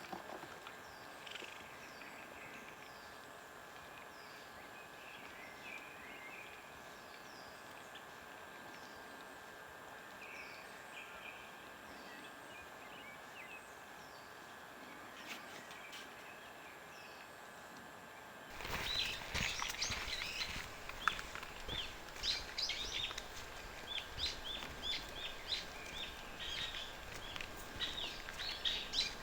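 Small birds chirping, faint and spread out at first; about two-thirds of the way in the sound turns suddenly louder and busier, with dense chirping and crackling.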